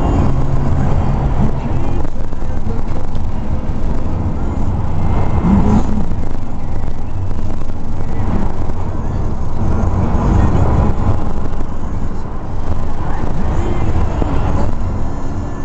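Car running down the road, heard from inside the cabin: a steady low engine and road rumble.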